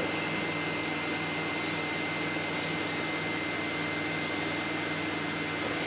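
Steady background hiss with a thin, high continuous whine and a low hum, with no distinct events.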